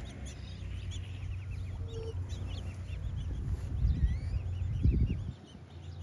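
Small songbirds chirping and trilling, with a low rumble underneath that drops away about five seconds in.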